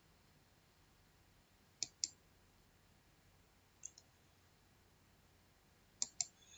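Computer mouse clicks: a pair about two seconds in, a single one near four seconds, and another pair near the end, each sharp and short against near silence.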